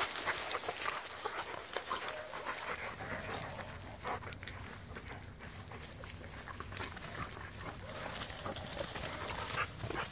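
Two puppies play-fighting in tall grass: irregular rustling and scuffling of grass and bodies, with small dog vocal sounds mixed in.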